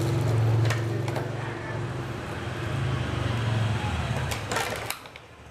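A low steady engine drone, which stops abruptly near the end, mixed with sharp clicks and crinkles of a plastic clamshell takeaway box and aluminium foil being handled; the clicks come twice about a second in and in a cluster just before the drone stops.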